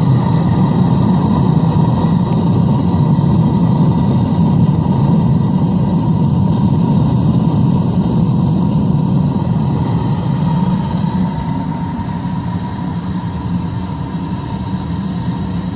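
Propane-fired metal-casting furnace burning: a loud, steady rush of burner flame with a thin steady tone over it, easing a little over the last few seconds.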